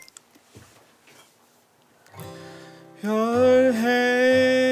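Acoustic guitar being played, its picked notes starting about two seconds in. About a second later a loud, long held note comes in over it as the song begins.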